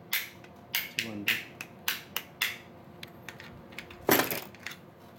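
Sharp metallic clicks and clinks of a hex wrench and small parts against an airsoft electric gun's metal receiver as the bolt catch is taken off, with a louder clattering knock about four seconds in.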